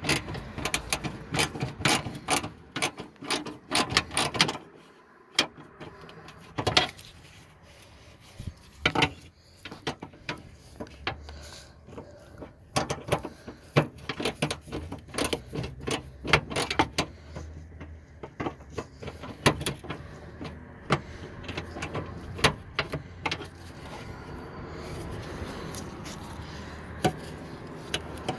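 A socket ratchet fitted with a short 8 mm socket clicking in runs as the car's fender mounting bolts are backed out. Scattered knocks and clicks of tools being handled come between the runs.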